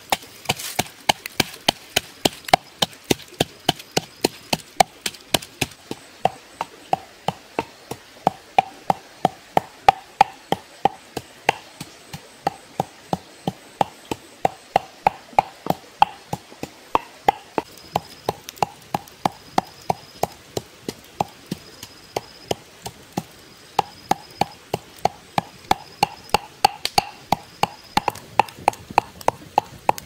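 A pestle pounding red chilies and salt in a mortar: steady knocks, about three a second, each with a short ring.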